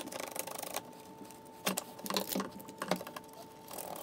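Light clicks and knocks of metal parts being handled and fitted on a combination belt and disc sander as its disc guard goes back on, a handful of separate taps, over a faint steady hum.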